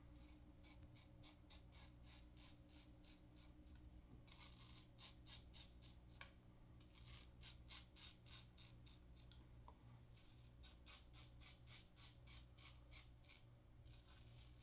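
Single-edge safety razor (a Superior Lather Catcher with a GEM PTFE blade) scraping through stubble in quick short strokes, about three a second, in several runs with brief pauses between them, on an against-the-grain pass.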